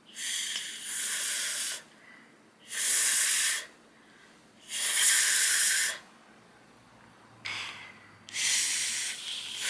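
A woman's breath hissing out through her teeth and tongue in four long puffs, each about a second long with short pauses between, as she demonstrates tongue placement for the Spanish r.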